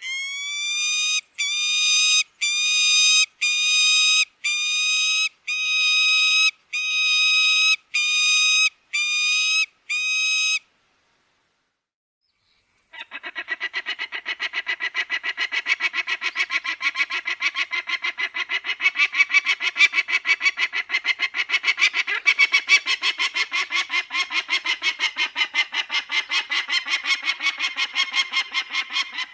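Falcon calls: about ten drawn-out, harsh, pitched screams in steady succession, then after a short pause a long, fast run of chattering notes.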